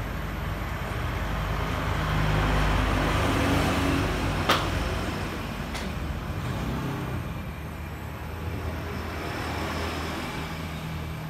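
Avian Brands paint mixing machine running, spinning a can of paint to blend the tint: a steady motor hum and rumble. A sharp click about four and a half seconds in, and a fainter one a little later.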